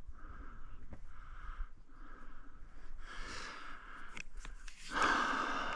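A person breathing close to the microphone: a run of short, noisy breaths about one a second, with a louder, longer breath out near the end.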